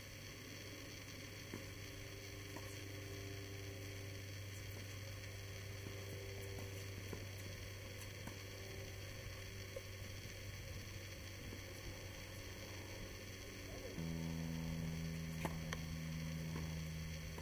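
A steady low hum that jumps to a higher pitch and gets louder about fourteen seconds in, with a few faint short taps.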